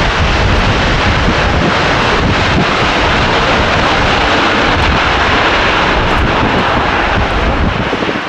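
Emirates Airbus A380-861's four Engine Alliance GP7200 turbofans at high power during the takeoff roll: a loud, steady jet engine noise.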